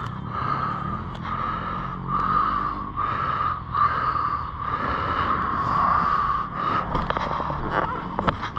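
Kawasaki KX two-stroke dirt bike engine idling unevenly on its stand. A few sharp clicks near the end.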